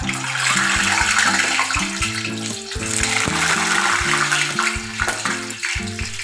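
Whole boiled eggs going into hot oil in a kadhai and frying: a loud, steady sizzle that starts as the first egg goes in and swells again about three seconds in as the second is added.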